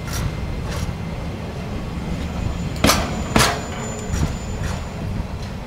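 Empty container flat wagons of a freight train rolling slowly past, their steel wheels clacking over a rail joint in pairs about half a second apart, the two axles of each bogie, over a low steady rumble. The loudest pair comes about three seconds in.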